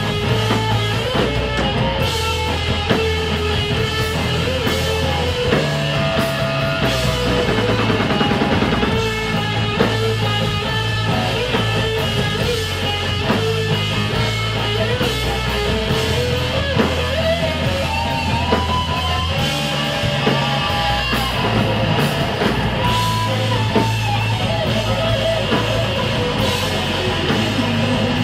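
Live rock band playing an instrumental passage: an electric guitar lead with bent, held notes over drums and low bass notes.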